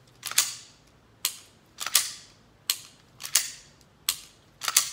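Semi-automatic pistol dry-fired with a laser training cartridge in the chamber: a sharp trigger click, then the slide racked by hand with a quick double clack to reset it. The cycle repeats in a steady rhythm about every second and a half, three shots and four racks.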